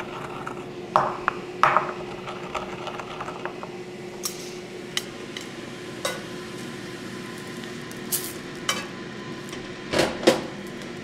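Metal tongs clicking and scraping against a cast iron skillet as portobello mushroom caps are turned, with a couple of louder knocks about a second in and a pair near the end, over a steady low hum.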